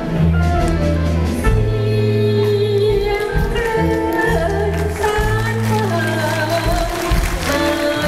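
A woman singing a Thai song into a microphone, accompanied by a live band with steady held bass notes under her sustained, gliding vocal line.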